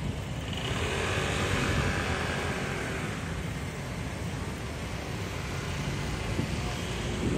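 Road traffic: a vehicle drives past, its sound swelling about a second in and fading over the next few seconds, over a steady low rumble of the street.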